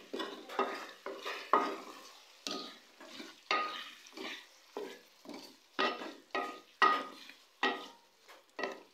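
A spatula stirring and scraping chopped tomatoes and chicken around a frying pan, in quick repeated strokes about one or two a second, with the food sizzling in the oil.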